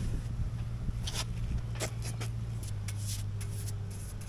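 A steady low mechanical hum, with a few short sharp clicks and taps of things being handled over it.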